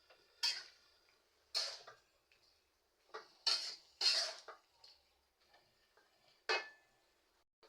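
Kitchenware clattering: a utensil knocking and scraping against pots or dishes in about seven separate sharp clinks, irregularly spaced, with two close together around three and a half to four and a half seconds in.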